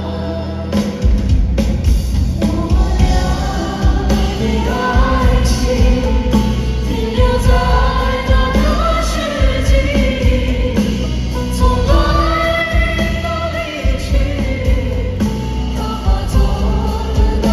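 Live concert band music with a heavy, steady bass beat and choir-like singing over it.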